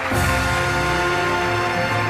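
Soundtrack music: sustained chords, with a new chord coming in right at the start.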